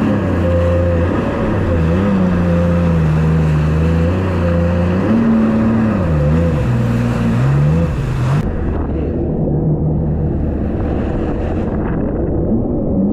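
Yamaha WaveRunner jet ski engine running under way, its pitch dipping and rising with the throttle about halfway through, with water and wind rushing past. The rushing hiss drops away suddenly about eight seconds in.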